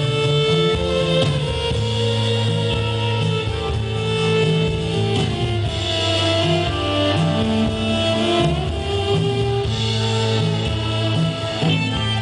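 Live band music without vocals: an acoustic guitar strummed over long held notes and a moving bass line.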